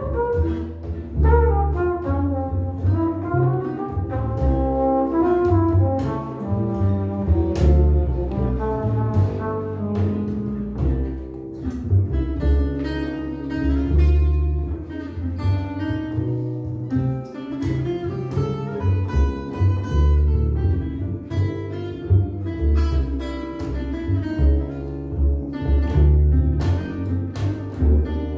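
Small jazz group playing an instrumental passage: a trumpet carries the melody over double bass and guitar chords.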